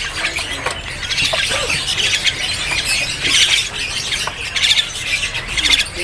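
Many caged small birds calling over one another: a dense, unbroken chorus of short high chirps and calls, with a few louder clusters in the second half.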